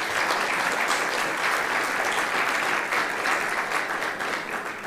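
Audience applauding: many hands clapping in a dense, even patter that tapers off near the end.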